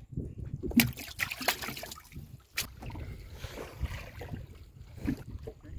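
River water splashing and sloshing as fishermen wade through it, under a steady low rumble of wind on the microphone, with a few sharp knocks.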